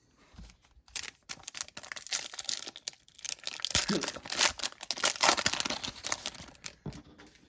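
A trading card pack's foil wrapper being torn open and crinkled by hand: a dense, irregular crackle that starts about a second in and dies away near the end.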